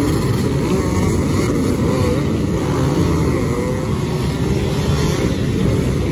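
Many motocross dirt bikes racing on a sand course at once, a dense, steady engine rumble with individual engine notes rising and falling as riders rev.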